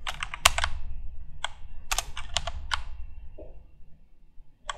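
Typing on a computer keyboard: about a dozen irregular key clicks over the first three seconds, then they stop.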